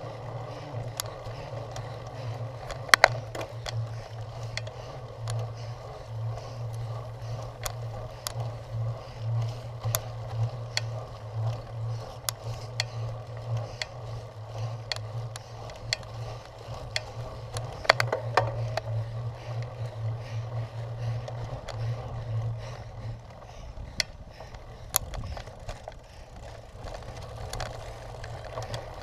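Cyclocross bike being ridden over rough ground: steady rolling noise with a low hum, and the bike rattling with many sharp clicks and knocks. The loudest knocks come about three seconds in and again about eighteen seconds in, and the low hum drops away a few seconds before the end.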